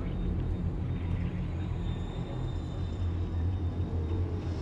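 Steady low rumble with a faint, steady high whine above it.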